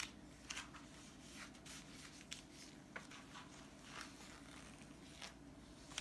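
Faint rustling and crinkling of a cookbook's paper pages as they are handled and turned: scattered short sounds over a low, steady room hum.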